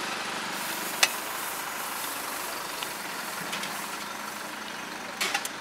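Steady hissing background noise of a roadside food stall, with a sharp utensil click about a second in and a few lighter clicks near the end.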